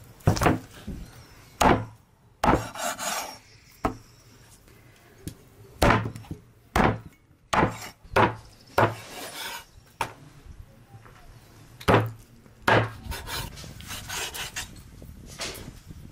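Meat cleaver chopping lamb ribs on a wooden cutting board: about a dozen sharp chops at uneven intervals, with a few longer scraping sounds between them.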